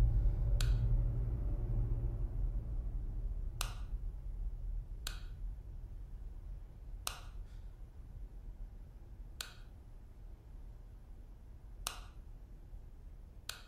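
A wall light switch clicked seven times at uneven intervals, each a single sharp click, over a low rumble that dies away.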